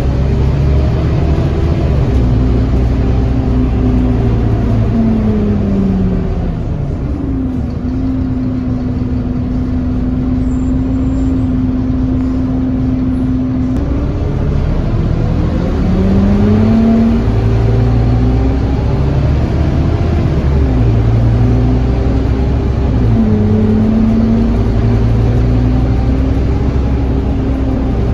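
Scania N230UD OmniCity double-decker bus heard from inside, its five-cylinder diesel and gearbox whining over a steady low rumble. The whine falls as the bus slows, holds one steady note for several seconds, then rises as it pulls away and accelerates. It falls and climbs again near the end with a gear change.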